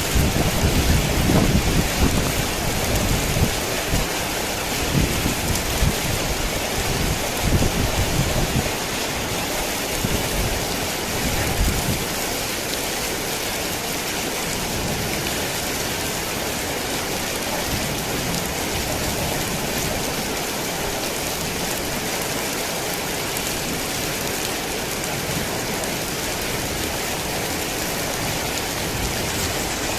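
Heavy rain falling steadily in a dense hiss, with low rolling rumbles of thunder through the first dozen seconds that die away, leaving only the rain.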